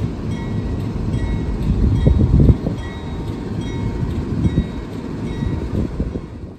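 Indian Pacific diesel locomotive idling with a low rumble, swelling about two seconds in, while a faint chiming tone repeats about once a second behind it.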